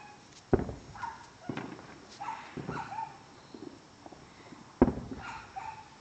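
Fireworks going off at a distance: two sharp loud bangs, about half a second in and near the end, with smaller pops and cracks between them.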